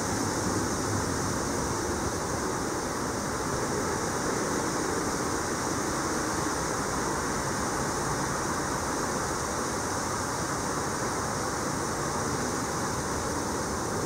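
A steady rushing noise, even in level throughout, with no distinct events.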